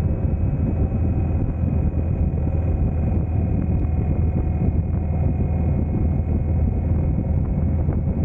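Indian Thunderstroke 111 air-cooled V-twin of a 2019 Springfield motorcycle running steadily at an even engine speed, with no revving.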